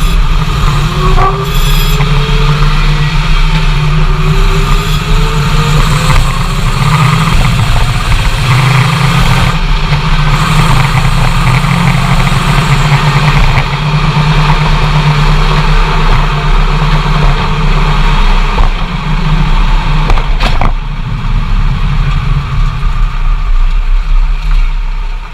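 Dodge Ram 2500HD's Hemi V8 and drivetrain on the move, rising in pitch as the truck accelerates early on, then running steadily, with one sharp click about twenty seconds in. The drivetrain makes a shearing, rattling grind under acceleration after shifts, which the owner suspects comes from the transfer case.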